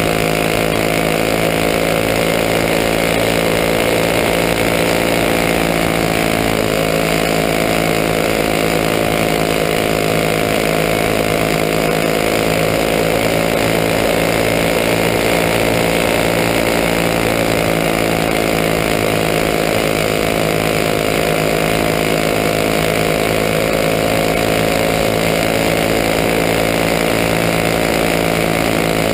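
Winged champ kart's small engine running at racing speed, heard from onboard the kart: a loud, steady buzz that holds nearly the same pitch, with only slight dips and rises as it circles the oval.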